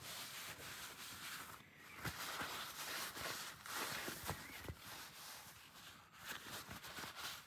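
Paper towel rustling and rubbing against a motorcycle's chrome front fork tube, with a few light knocks from handling.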